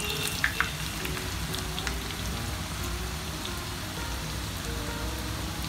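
Cornflour-coated potato wedges deep-frying in hot oil: a steady crackling sizzle, with a couple of sharp clicks near the start.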